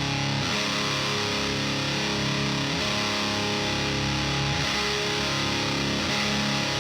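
Electric guitar played through a Diezel VH4 preamp pedal at high gain, heavily distorted, with sustained chords changing about every two seconds.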